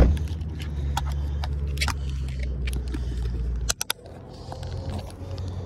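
A car engine idling with a low, steady rumble, with a few sharp clicks over it. About three and a half seconds in, two or three sharp clicks come and the rumble drops off, then carries on fainter.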